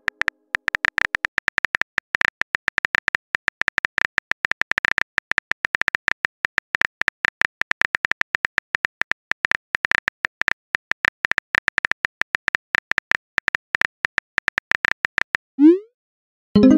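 Rapid phone-keyboard typing clicks from a texting app's sound effect, each tap with a small high ping, in a fast steady stream. Near the end a short rising swoosh as the message is sent, a brief silence, then a plucked-sounding chime.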